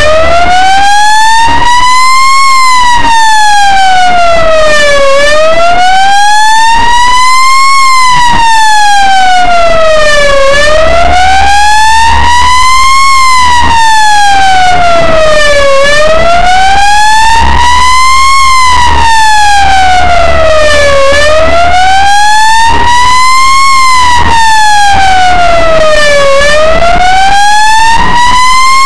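Ambulance siren on a slow wail, its pitch climbing and falling evenly about once every five seconds, very loud as heard from inside the cab. A low engine and road rumble runs underneath.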